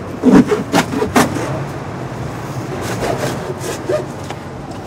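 Cardboard being handled and scraped as flattened boxes are sorted into a cart: a few sharp scrapes and knocks in the first second or so, then quieter rustling and a few smaller knocks, over a steady low hum.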